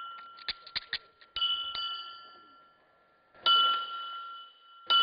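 A small metal bell struck again and again, about every one and a half seconds, each strike ringing on with a clear steady tone and fading. A few sharp clicks come in the first second.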